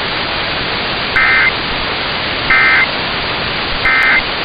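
Emergency Alert System end-of-message data burst: three short, identical bursts of warbling digital tones about 1.4 s apart, closing the alert test. They sound over a steady hiss of radio static.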